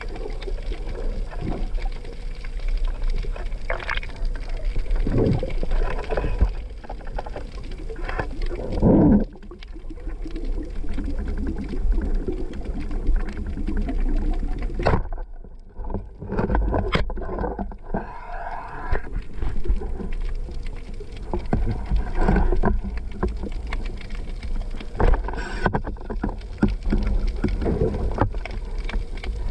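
Muffled underwater noise picked up through an action camera's housing: a steady low rushing of water with swells as the diver swims, broken by a few sharp knocks.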